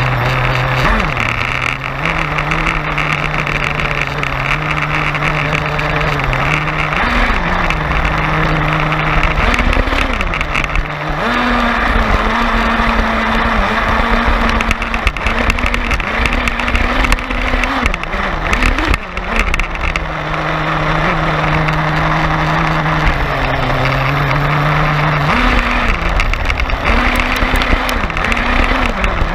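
Radio-controlled monster truck's motor running as it drives, its pitch rising and falling several times as the truck speeds up and slows, over a steady rushing noise.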